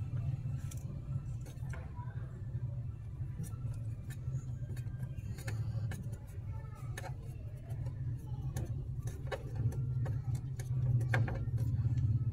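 Plastic clicks and light scrapes of the motorcycle's oil filler cap and dipstick being gripped and unscrewed, coming thicker near the end, over a steady low hum.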